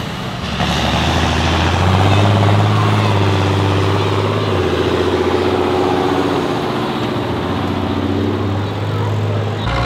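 John Deere tractor's diesel engine running hard as it drives through the mud course, a steady low drone whose note shifts about halfway through and again near the end.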